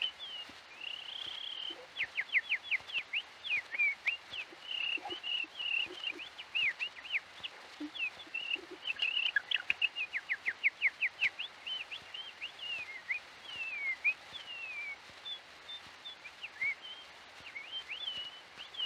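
A man imitating bird song through his nose with his lips sealed: high whistled warbles, quick runs of short downward-sliding notes, and chirps.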